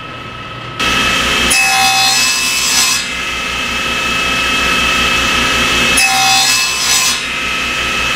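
Table saw running with a steady blade whine while a wooden mallet-handle blank is pushed across the blade against a miter fence. There are two louder cutting passes, one near the start and one about two-thirds through. The end of the handle is being nibbled away with a standard blade, one pass at a time, rather than with a dado stack.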